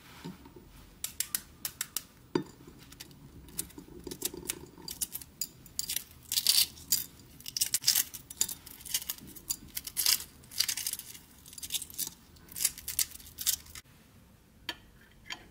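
Shells of hard-boiled eggs being cracked and peeled by hand, a run of irregular sharp crackles and clicks as the shell breaks and its pieces drop into a bowl. Near the end, two separate light knocks.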